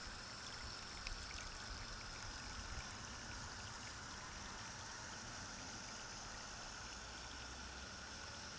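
Steady rushing of water, with a faint steady high whine on top and a few small ticks in the first few seconds.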